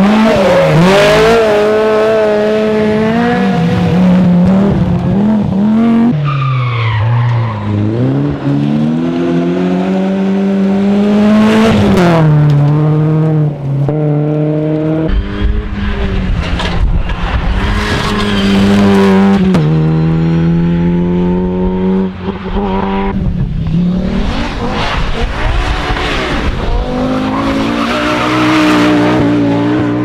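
Rally cars at full attack, one after another: engines revving hard, their pitch climbing and falling through gear changes. The sound cuts abruptly from one car to the next every few seconds.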